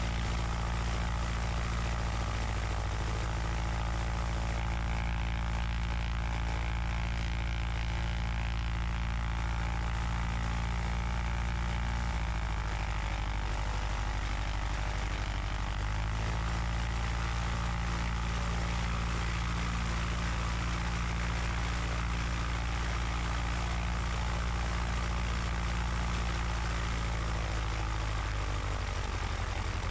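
Cessna 150's four-cylinder Continental O-200 engine and propeller running steadily at run-up power. The engine note drops about twelve seconds in and comes back up about four seconds later: a magneto check showing an RPM drop from a fouled spark plug.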